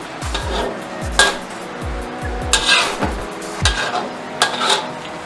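Metal spatula stirring and scraping a thick ground pork and chicken mixture in a stainless steel wok, with irregular clinks and scrapes against the pan.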